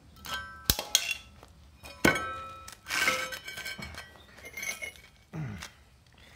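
Sharp metallic clinks at irregular intervals, each ringing briefly: a steel drawbar and its fresh weld being struck to knock the welding slag loose.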